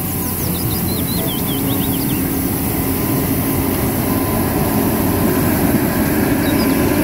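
Compact street sweeper running, its engine and suction fan giving a loud steady drone while the rotating side brushes scrub the road, growing slightly louder toward the end. A run of short high chirps sounds in the first two seconds or so.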